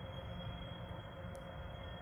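Steady low rumble and hiss with a faint, unchanging high-pitched tone running through it; no train or other event is heard.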